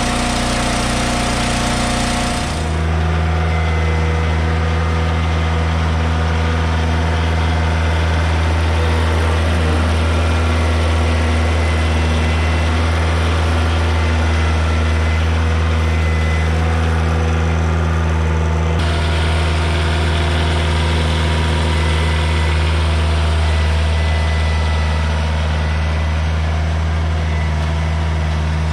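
For the first two and a half seconds, a log splitter's engine running. Then a Kubota KL401 compact tractor's diesel engine runs steadily with a deep, even hum.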